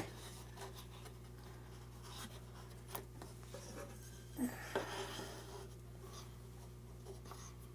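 Faint scraping and a few soft knocks as small plywood pieces are slid and set into a table saw sled, over a steady low hum; the saw itself is off.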